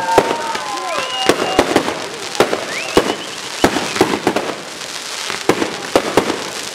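Aerial fireworks display: a rapid, irregular series of sharp bangs from bursting shells, well over a dozen, over a continuous hissing crackle. A couple of rising whistles sound in the first half.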